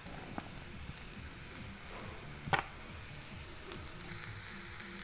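Soft pattering of stir-fried vegetables being tipped from a spoon onto cooked rice in a non-stick pan, with a single sharp clink of the spoon about halfway through.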